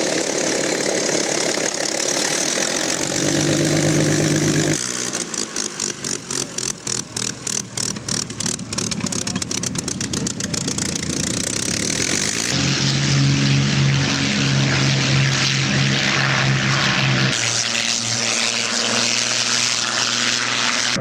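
Propeller aircraft piston engines running steadily on the ground. The sound changes abruptly several times, and from about five to ten seconds in it carries a fast, regular pulsing.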